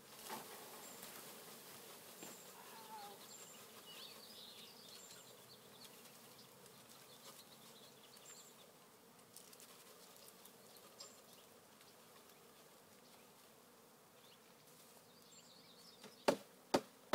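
A colony of honeybees buzzing in a faint, steady hum as the package colony is moved into its new hive. Two sharp knocks land just before the end.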